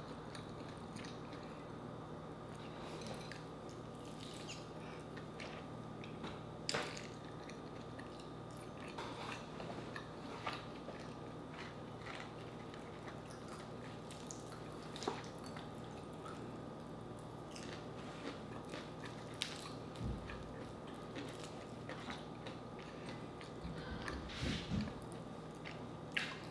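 Close-up eating sounds: chewing, small crunches and wet squishes as fried chicken skin and meat are torn by hand and dipped in gravy, over a faint steady hum. A few low thuds near the end, a child running around.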